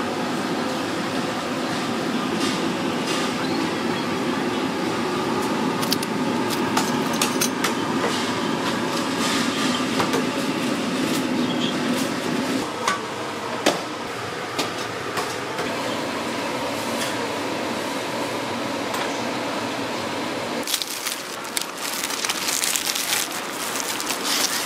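Busy food-stall kitchen ambience: a steady background din with scattered clinks and knocks of utensils and dishes. Near the end a loud hiss sets in for a few seconds.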